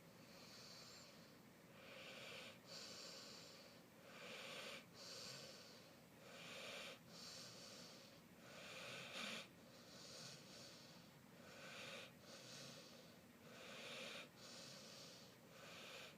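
A sleeping dog breathing noisily with a soft snore, in slow, even breaths that come about every one to two seconds.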